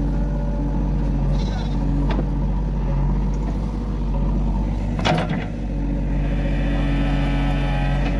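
JCB 3DX backhoe loader's diesel engine running steadily under load as the backhoe bucket digs into soil. Two sharp knocks from the bucket and arm, the louder one about five seconds in. A high, wavering pitched sound joins near the end.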